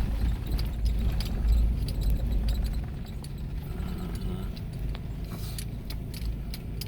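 Car driving on an unpaved dirt road, heard from inside the cabin: a steady low road rumble with scattered clicks and rattles. The rumble is louder for the first couple of seconds, then eases.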